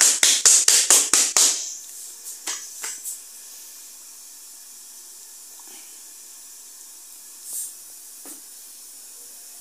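Gas hob's electric igniter clicking rapidly, about five clicks a second, stopping about a second and a half in, then a faint steady hiss with a few soft knocks.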